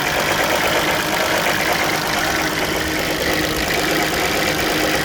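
Volkswagen Touareg 3.2 VR6 (BMV) engine running steadily with a knocking noise that the owner suspects comes from the cam phasers.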